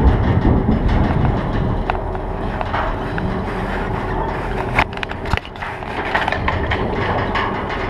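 Logs knocking and scraping against one another as a crane grapple grabs and lifts a bundle from a timber semi-trailer's load, over a steady low rumble of heavy machinery. A couple of sharper knocks come about five seconds in.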